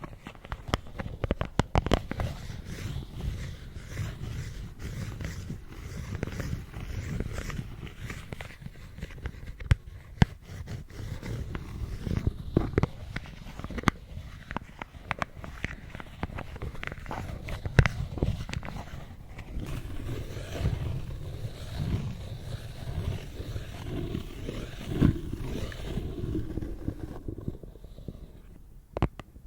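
Plastic lids handled close to the microphone: scraping and rubbing with frequent sharp taps and clicks.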